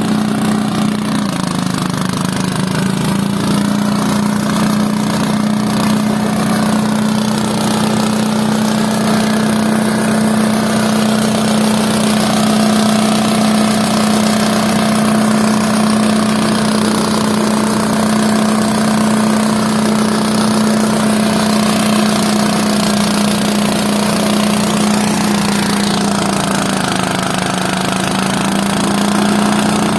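An engine running steadily at constant speed, its pitch sagging briefly about a second in and again near the end.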